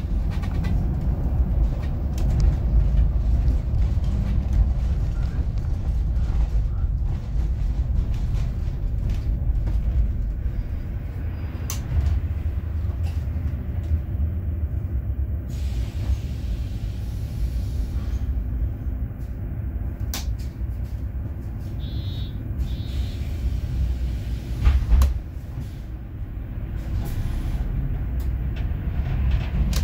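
A city bus in motion, heard from inside: steady engine and road rumble. About two-thirds through there is a short run of beeps, and a heavy thump follows a couple of seconds later.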